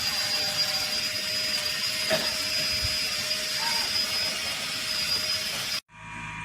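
Suction fan of a wall-climbing RC toy running, a steady whirring hiss with a high whine over it like a small vacuum. It cuts off abruptly near the end, leaving a quieter steady hum.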